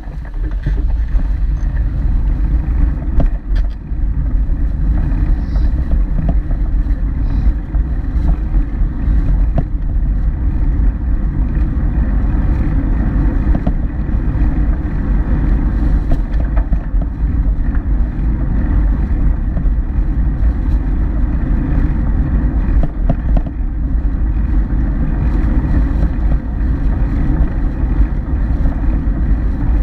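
Wind buffeting the bike-mounted camera's microphone while riding, a loud, steady low rumble with road noise.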